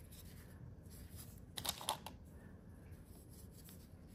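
Handling noise from a woven cloth watch band being adjusted: faint rustling, with a short run of scraping clicks a little under two seconds in.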